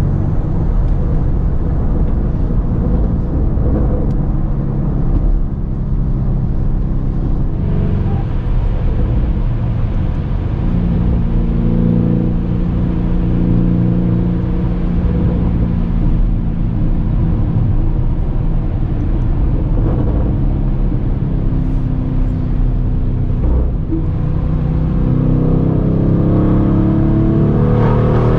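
Lamborghini Urus twin-turbo V8 breathing through a Capristo straight-pipe exhaust, running under way with a steady engine note that rises in pitch as it accelerates over the last few seconds.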